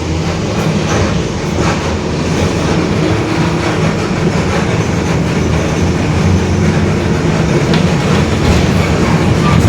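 Mercedes-Benz OF-1721 bus's front-mounted six-cylinder diesel running under way, heard from inside the bus as a steady low drone with body rattles, building slightly in loudness. A growling rear differential runs under the engine noise.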